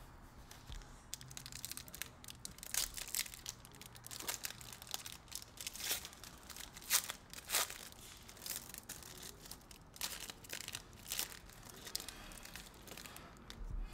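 Foil wrappers of trading-card packs crinkling and tearing as packs are handled and ripped open: a run of irregular crackles, loudest a little past the middle.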